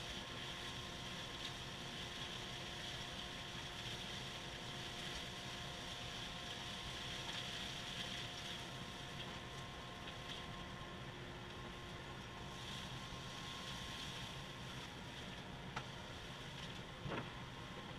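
Cyclone dust collector running steadily: a motor hum under the rush of air drawn through its hose. Two short knocks near the end.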